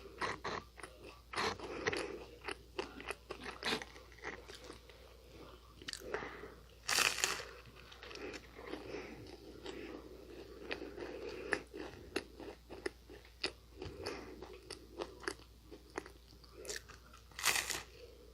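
Close-miked crunching bites and chewing of Nunettine, a flaky sugar-glazed puff pastry: a steady, irregular run of small crisp crackles, with two louder, longer crunches about seven seconds in and near the end.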